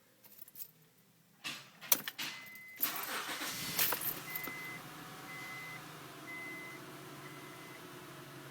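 Keys and clicks, then a 2002 Acura 3.2TL's V6 is cranked and catches about three seconds in and settles to a steady idle. A dashboard warning chime beeps about once a second over the idle.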